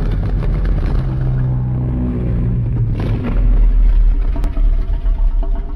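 Godzilla-style monster sound effect: a deep, pitched growl over a heavy low rumble, with a new low rumbling surge about three seconds in.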